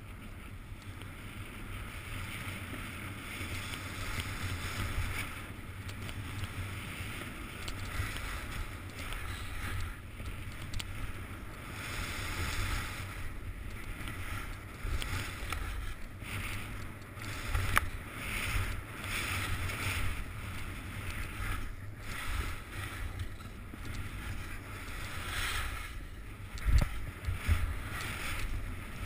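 Skis scraping and hissing over hard-packed snow, the hiss swelling and fading with each turn, over a steady low rumble of wind on the GoPro's microphone. Two sharper thumps come in the second half.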